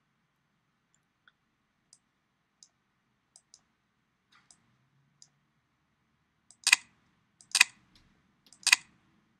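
Computer mouse button clicking: a few faint ticks, then three sharp, loud clicks about a second apart in the last few seconds.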